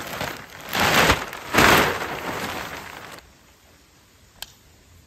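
A large plastic vapor-barrier sheet rustling and crinkling as it is shaken out and spread flat. There are two loud swishing flaps about a second in, and the rustle dies away about three seconds in, followed by a single click.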